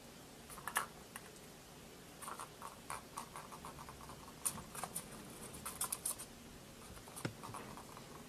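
Kitten pawing and scratching at a plastic tube-track ball toy: irregular light taps and scrapes, with a louder knock about seven seconds in.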